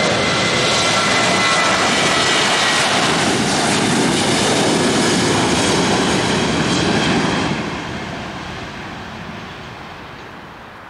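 Boeing 737 jet engines at takeoff thrust during the takeoff roll: a loud, steady rush with a high whine at first. After about seven and a half seconds the sound fades steadily as the jet moves away down the runway and lifts off.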